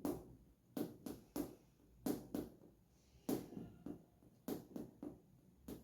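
Heart sounds with a third heart sound (S3, protodiastolic gallop): short thuds in a galloping three-beat 'Kentucky' rhythm, a cycle about every 1.2 seconds. The extra early-diastolic sound comes from the ventricular walls vibrating during rapid ventricular filling.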